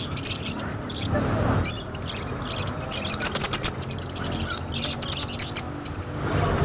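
A cageful of budgerigars chirping and chattering, with many quick overlapping chirps, against people talking in the background.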